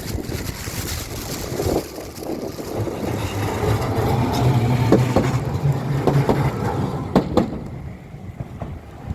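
A motor vehicle passing with a low hum that steps up in pitch in the middle, over general street traffic noise, with a few sharp knocks near the end.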